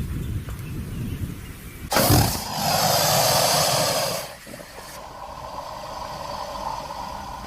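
Sound-effect roar of a Spinosaurus, a designed creature vocalization. A low rumbling growl breaks into a sudden loud, harsh roar about two seconds in that lasts about two seconds. It then trails off into a quieter drawn-out call that fades near the end.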